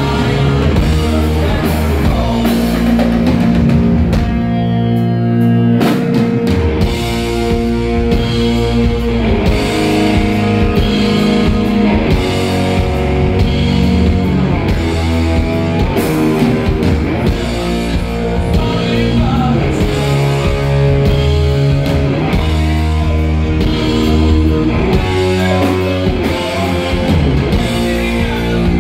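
Heavy rock band playing live: distorted electric guitars and a drum kit. The cymbals drop out briefly about four seconds in.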